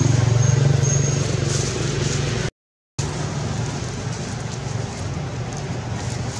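A motor engine running steadily with a low hum, broken by a half-second gap where the sound cuts out completely midway. A thin high whistle sounds briefly twice in the first second.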